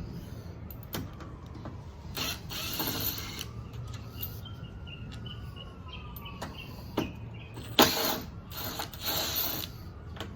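Hand tools working on screws in a car door: clicks and short scraping, ratcheting bursts against metal, the loudest about eight seconds in.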